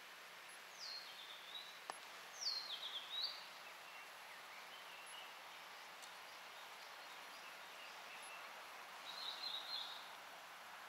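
A songbird calling over a faint steady outdoor hiss: two sharp calls that slide down in pitch in the first few seconds, and a short warbling phrase near the end.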